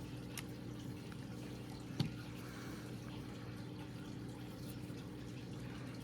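Steady low electrical hum in the room, with a couple of light clicks from handling small parts, the sharpest about two seconds in.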